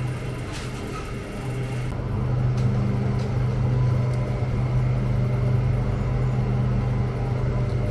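Steady low droning hum of a convenience store's interior, with the refrigerated drink coolers the likely source, growing louder about two seconds in as a second, higher hum joins.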